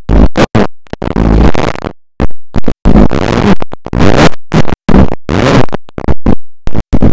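Suzuki Hayabusa 1300 cc inline-four revved hard through a Brocks aftermarket exhaust: a rapid series of sharp throttle blips, loud and choppy, each cutting off abruptly.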